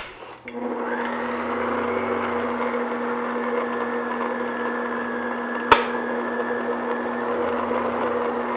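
Electric stand mixer running at a steady speed, its flat beater turning through cake batter in a glass bowl as milk is mixed in. The motor starts about half a second in and holds an even hum, with a single sharp click partway through.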